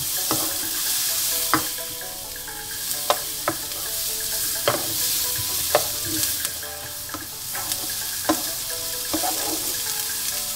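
Onion, green pepper and grated carrot sizzling in butter and oil in a frying pan as they are sautéed until soft, stirred with a wooden spoon. The spoon knocks against the pan now and then, several times at irregular intervals.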